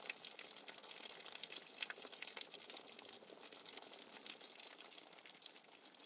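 Steady rain pattering, with water dripping and running off a roof edge: a soft, even hiss dense with the ticks of many small drops.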